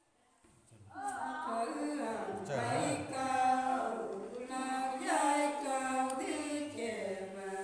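A woman singing a Nùng folk song unaccompanied, with long drawn-out held notes, starting about a second in.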